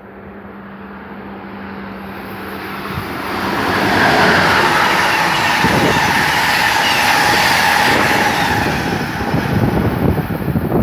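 Amtrak Northeast Regional train led by an ACS-64 electric locomotive passing through the station at speed. The noise builds over the first few seconds with a steady low hum, becomes a loud, even rush of wheels and air as the train goes by, and turns choppy near the end.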